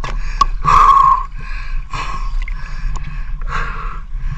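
A person breathing hard, in and out about once a second, over a low steady rumble.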